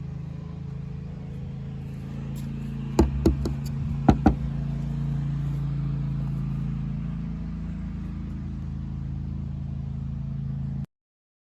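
Steady low mechanical hum with four sharp knocks: two close together about three seconds in and two more about a second later.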